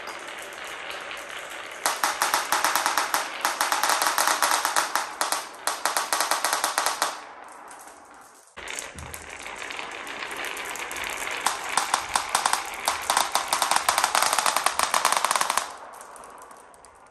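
Many marbles rolling down a wooden marble run, clattering along the wooden tracks and against each other in a dense run of rapid clicks. It fades, breaks off abruptly about eight and a half seconds in, then a second run of clattering marbles follows and dies away near the end.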